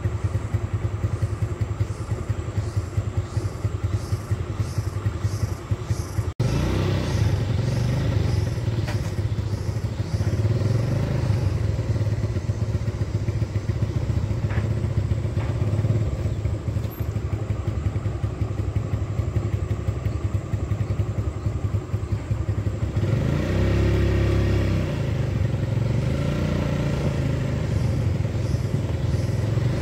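Motorcycle engine running at low speed, steady throughout, dropping out for an instant about six seconds in and rising and falling in pitch about three quarters of the way through.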